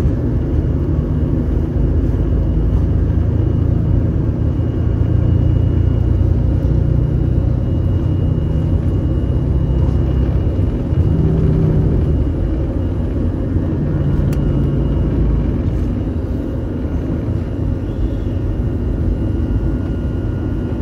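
Steady low rumble of a jet airliner's engines heard from inside the passenger cabin.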